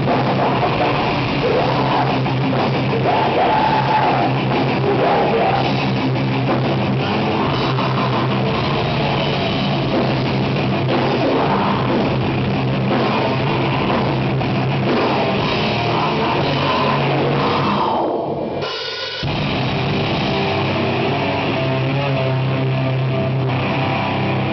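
Heavy metal band playing live at a sound check, with distorted guitars and a drum kit with cymbals. There is a brief break about eighteen seconds in before the playing resumes.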